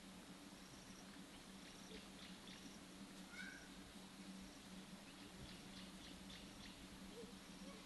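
Near silence: faint ambience with a steady low hum, scattered short high chirps and ticks, and one brief rising call a little past three seconds in.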